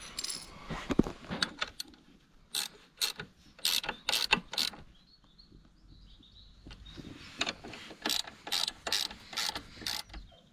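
Socket ratchet wrench clicking as a bolt on a motorcycle's crash-bar bracket is turned, in two runs of quick, uneven clicks: one about two and a half seconds in, another from about seven seconds.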